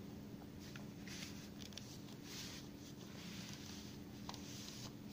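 Faint rustling and sliding of paper as a window envelope is opened and the folded letter is pulled out, with a few small clicks.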